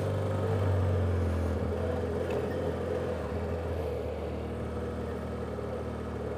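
BMW F800GS parallel-twin engine running steadily as the motorcycle rolls along a gravel road, its sound easing slowly as the rider backs off.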